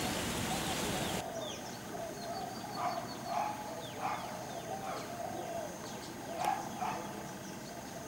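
Steady rain hiss that cuts off abruptly about a second in, giving way to quieter outdoor background with birds: a run of short mid-pitched calls, several about half a second apart, and a few faint thin high chirps.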